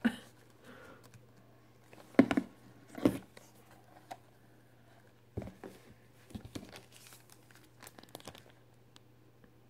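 Clear plastic packaging crinkling and rustling while a resin ball-jointed doll body is handled, with a few sharp knocks and clacks, the loudest two about two and three seconds in.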